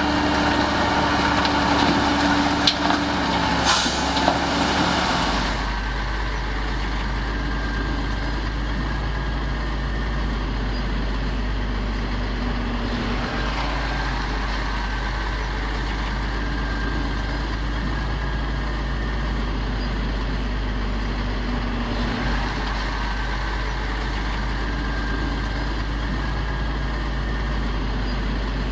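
Heavy diesel earth-moving machinery running, with a few knocks and a short high hiss about four seconds in. About five seconds in the sound changes abruptly to a steady low engine drone.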